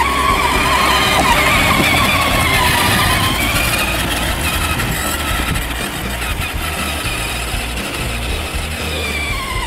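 Electric drive motor and gearbox of a 12-volt Kawasaki ride-on quad whining steadily as it drives over grass, dropping in pitch near the end as it slows.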